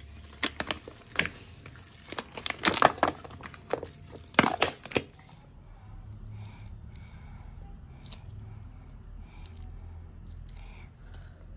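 Crinkling and tearing of packaging: a run of sharp crackles and snaps for about five seconds, then it stops, leaving a low steady hum with a few faint ticks.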